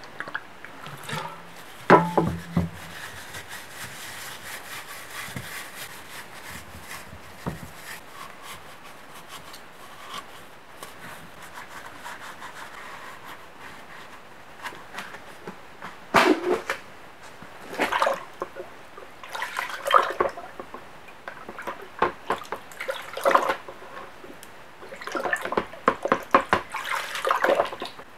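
A knock about two seconds in, then from about halfway a run of irregular splashing and sloshing as an aluminium two-stroke cylinder is swished around in a plastic bucket of acetone.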